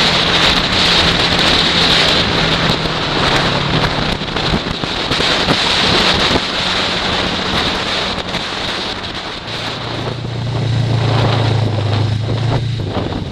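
Snowmobile engine running, heard through heavy wind noise on the microphone. Near the end its note drops lower and grows stronger, then fades out.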